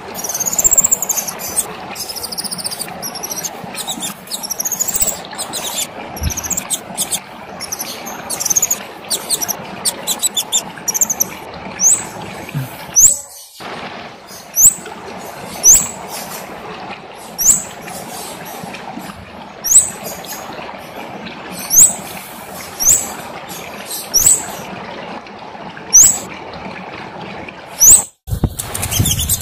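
A kemade songbird singing: a busy, varied twittering song at first, then from about twelve seconds in a run of short, high, upward-sweeping chirps roughly once a second, over a steady background hiss.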